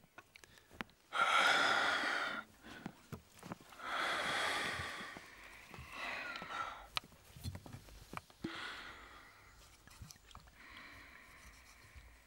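A man breathing heavily: about five gasping breaths and sighs a couple of seconds apart, the first the loudest. A few small clicks fall between them.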